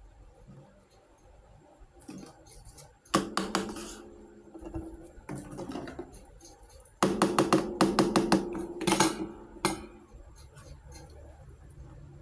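Miniature toy kitchenware pieces clinking and clattering against each other, in two bursts of rapid clicks: a short one about three seconds in and a longer one around seven to nine seconds, with lighter ticks between.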